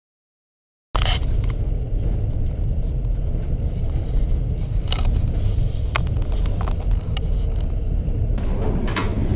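Passenger train running, heard from inside the carriage by the window: a steady low rumble of wheels on the track with a few sharp clicks, starting suddenly about a second in.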